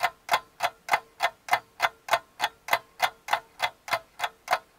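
Ticking-clock countdown sound effect, evenly spaced ticks about three a second, timing the last seconds to answer a quiz question.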